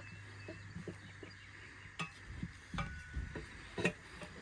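Light, irregular metal clinks and knocks from hand tools working on a manual tire changer, about half a dozen separate taps, with the sharpest near the middle and again near the end.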